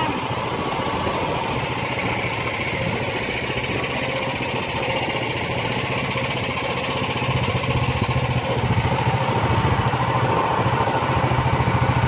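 A small boat's engine running steadily as the boat moves through the water, getting a little louder about seven seconds in.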